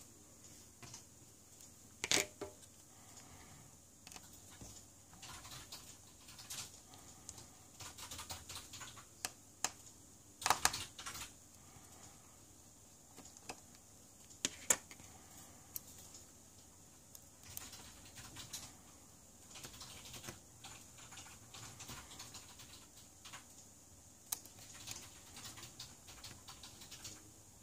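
Scattered small clicks and taps of tweezers and a screwdriver against a smartphone's metal shield and frame and the table, with sharper clicks about two seconds in, around ten to eleven seconds, and near fifteen seconds.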